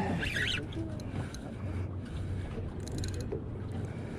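A boat's motor running with a steady low hum, with a short high chirp near the start and a brief run of light clicks about three seconds in.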